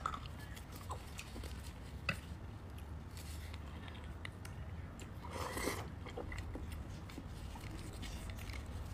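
Soft chewing and a thin skewer scraping cooked beef bone marrow out of a hollow bone, over a low steady hum. There is a sharp click about two seconds in and a brief louder scrape about halfway through.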